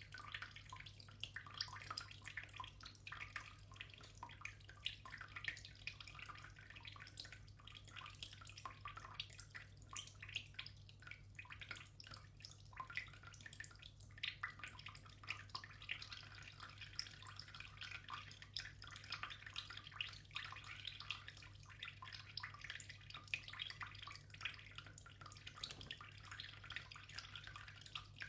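Thin trickle of water from a bathtub tap, pattering faintly and irregularly into the tub, over a steady low hum.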